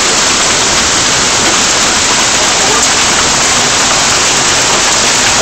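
Heavy hailstorm: marble-sized hailstones pouring down onto the yard, shrubs and path, a dense, steady hiss of countless small impacts.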